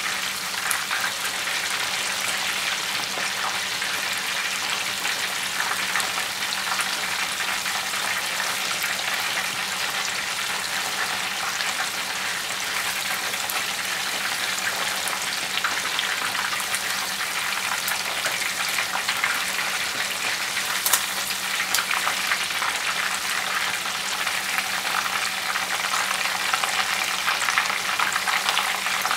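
Cornstarch-and-flour-coated chicken karaage deep-frying in a pot of hot oil: a steady, dense crackling sizzle full of fine pops. The heat has been turned up for the last stage of frying to crisp the coating.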